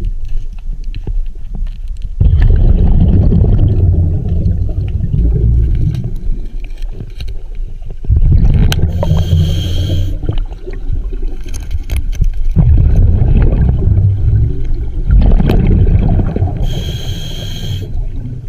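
Scuba diver breathing through a regulator underwater: exhaled bubbles rumbling out in several long bursts, with a short hiss of inhalation twice.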